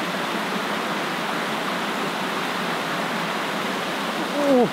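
Steady rush of water from a small creek cascade. Near the end comes a brief, louder sound that falls in pitch.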